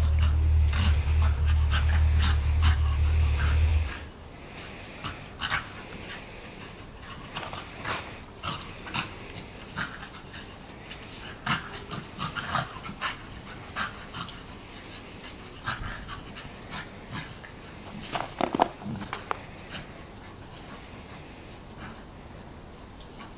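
A Lakeland terrier and a Plummer terrier pup play-fighting, panting, with short scuffling sounds and a louder cluster about eighteen seconds in. A loud low hum runs under the first four seconds and stops suddenly.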